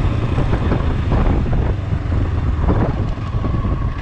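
Motorcycle engine running steadily on the move, with wind rushing over the microphone.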